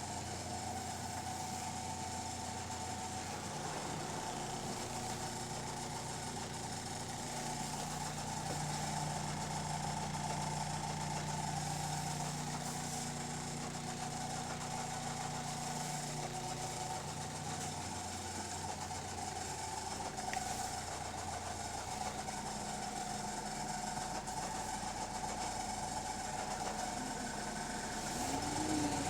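A double-decker bus's diesel engine and Voith automatic gearbox heard from inside the cabin, with a steady whine over the engine drone. The engine note climbs about a quarter of the way in and settles back about halfway through.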